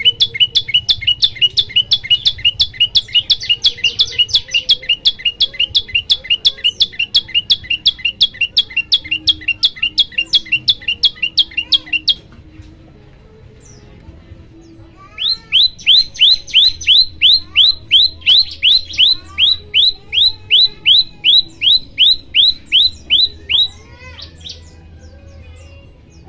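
Prenjak lumut songbird singing two long bouts of rapid, evenly repeated sharp high notes, about four a second, with a pause of about three seconds between the bouts.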